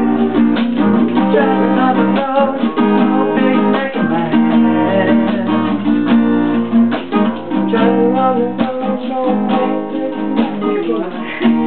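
Acoustic guitar strummed in steady chords.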